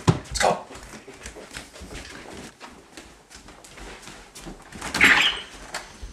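Scattered knocks and clattering: two sharp knocks at the start, then small clicks and taps, with one louder, harsher burst about five seconds in.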